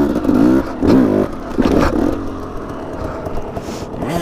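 Dirt bike engine revved in short throttle bursts about once a second, then running more evenly at lower revs.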